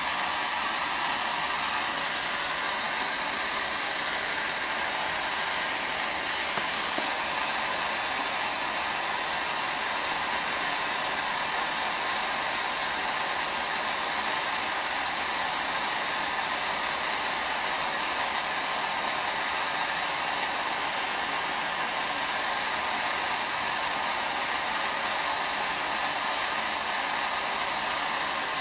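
Steady rushing noise of an electric fan or blower running, even in level with no breaks.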